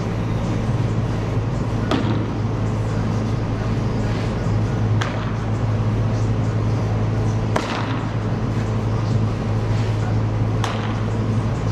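A baseball smacking into a leather glove four times, every two to three seconds, as pitches and return throws are caught. The pops echo briefly in the large hall over a steady low hum.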